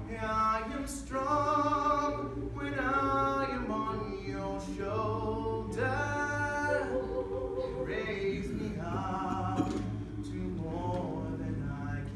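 A small mixed vocal ensemble of men and women singing a cappella in harmony, with sustained notes in flowing phrases.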